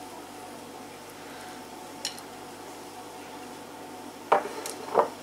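Kitchen crockery handled on a table: a light click about two seconds in, then two louder knocks near the end, over a faint steady hum.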